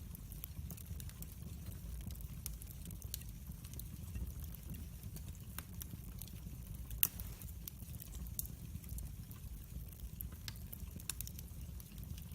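Wood fire burning in a fireplace, crackling with scattered sharp pops over a low steady rumble, with one louder pop about seven seconds in.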